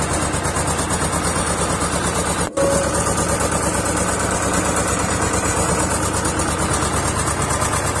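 Road roller's diesel engine running steadily with an even, pulsing throb. The sound cuts out briefly about two and a half seconds in.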